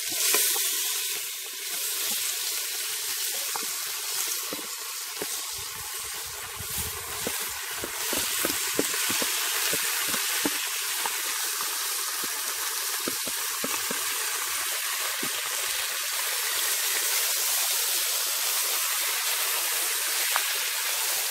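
Cow tail pieces frying in hot cooking oil in a pressure cooker pot: a steady sizzle with scattered pops and crackles.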